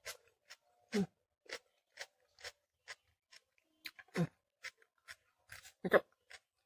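Close-up mouth chewing a raw yellow bell pepper: a run of crisp, wet crunches, about two a second, with louder ones about a second, four seconds and six seconds in.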